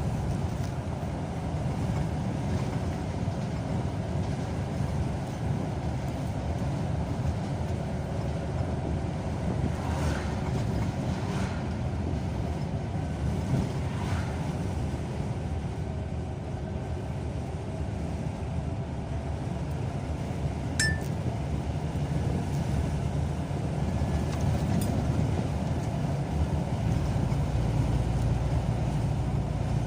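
Car driving along a road, heard from inside the cabin: steady low engine and tyre noise, with a light click about two-thirds of the way through.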